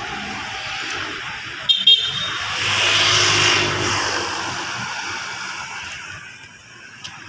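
Street traffic: a quick double toot of a car horn about two seconds in, then a car passing by, swelling and fading away.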